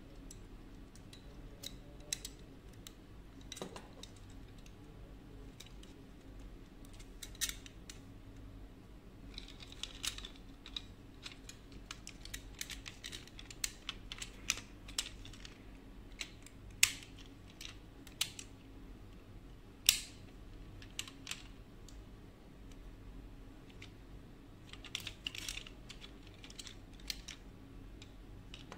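Plastic parts of a diecast toy car clicking and tapping as they are handled and pried apart: irregular small clicks in short flurries, with a few sharper snaps.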